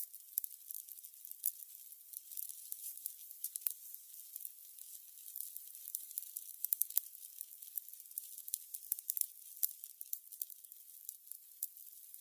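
Burning candles crackling: a steady stream of small, sharp crackles and pops over a faint hiss, with a few louder pops about four and seven seconds in.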